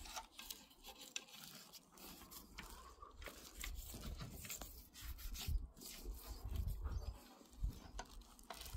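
Faint scratching of a toothbrush's bristles working oven-cleaner gel over a stainless-steel Saladmaster skillet, in short irregular strokes, with a low rumble in the middle.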